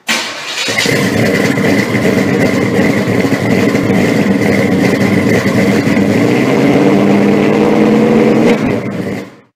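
A car engine running loudly and steadily, with a thin high whine over it; its pitch rises slightly near the end before it fades out.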